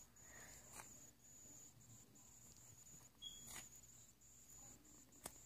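Near silence: faint room tone with a thin, high, steady whine that breaks off now and then, and a few soft clicks.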